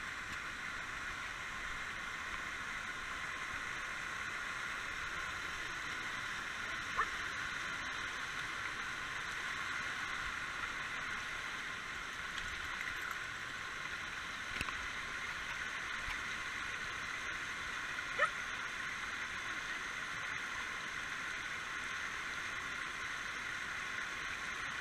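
Shallow rocky forest stream rushing over stones, a steady rush of water, with a couple of brief faint sounds over it.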